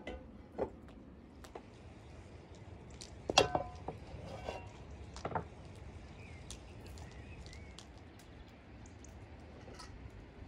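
Kitchenware clinks and knocks: a spatula scraping and tapping an enamel bowl over a large metal pan, with one loud ringing metal clank about three and a half seconds in and a few lighter knocks after it.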